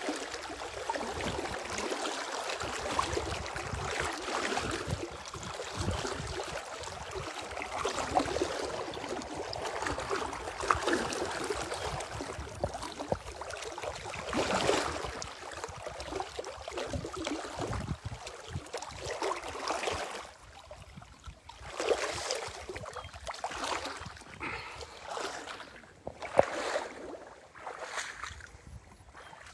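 A person wading through river water about waist-deep, the water sloshing and swishing around them with each stride. After about twenty seconds the sloshing thins to a few separate swishes as they wade out of the river.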